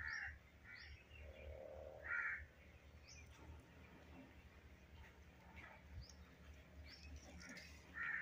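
Faint crows cawing, a few short harsh calls at the start, around two seconds in and near the end, with small birds chirping high in the background.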